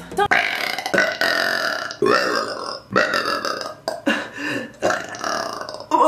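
A woman burping loudly again and again, a string of separate pitched burps coming about once a second.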